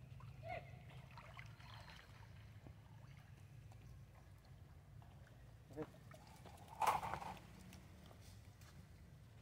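A few short calls from long-tailed macaques, the loudest a harsh squeal about seven seconds in, over a steady low hum.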